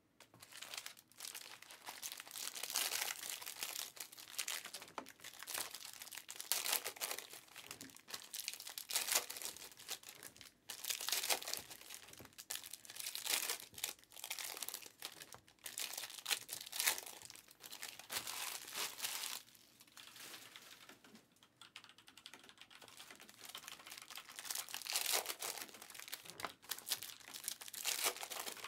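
Foil wrappers of Panini Prizm football card packs crinkling and tearing as they are opened by hand, in irregular bursts with a quieter lull about two-thirds of the way through.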